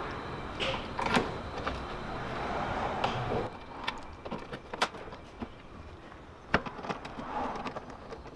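Scattered clicks and knocks of a plastic front grille being fitted back onto a Mercedes-Benz W211 and screwed in, with a few sharp snaps. A steady background noise stops about three and a half seconds in.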